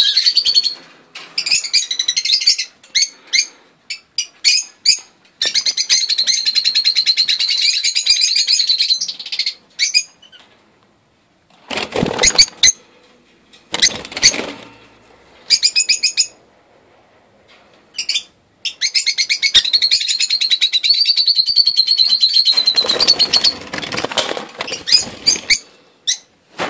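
A cage of young rosy-faced lovebirds chattering in shrill, rapid bursts lasting a few seconds each, with pauses between. Short bursts of wing flapping come in the pauses and near the end.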